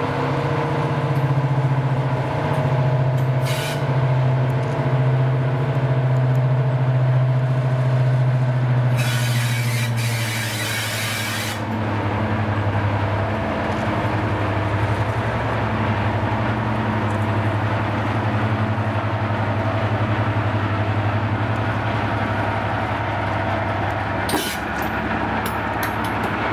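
Class 55 Deltic diesel locomotive's twin Napier Deltic two-stroke engines running steadily. About nine seconds in, air hisses out for roughly two and a half seconds, with shorter hisses near the start and end.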